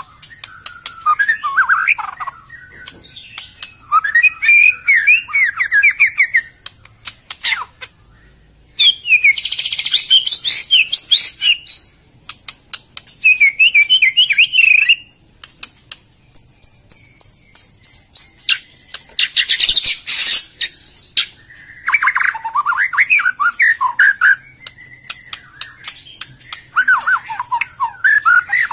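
White-rumped shama (murai batu) singing: loud phrases of fast, varied warbles and whistles, one after another with short gaps, with sharp clicks scattered between the phrases.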